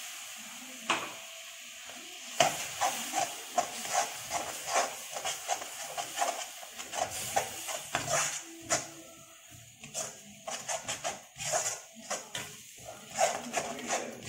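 Slotted metal spatula scraping and knocking against a metal kadai as a thick masala is stirred and fried. The frying sizzles underneath. After a single click about a second in, the quick scrapes and knocks start about two seconds in and go on two or three a second, easing off briefly in the middle.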